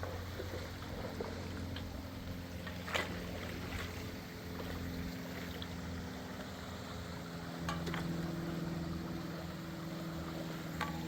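A distant engine running with a steady low hum whose pitch shifts a couple of times, under a few light clicks or knocks.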